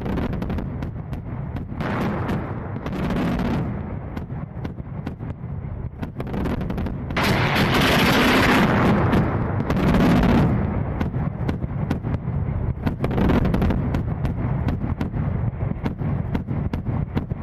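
Combat gunfire: many sharp shots over a steady low rumble, with two longer swells of noise about two and seven seconds in, the second the loudest.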